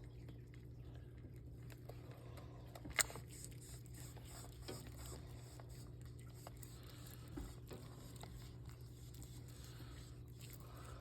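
Faint, scattered clicks of a bearded dragon biting at a beetle, over a steady low hum, with one sharp click about three seconds in.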